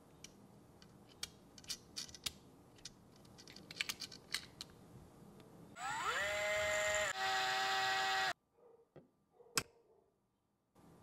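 Light clicks of small metal parts being handled. Then a small electric screwdriver spins up with a rising whine and runs for about two and a half seconds, with a brief break in the middle, as it drives a screw into an RC axle housing. A single sharp click follows near the end.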